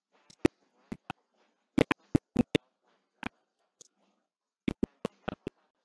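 About a dozen sharp clicks and taps at irregular intervals, some in quick pairs, over a faint low murmur.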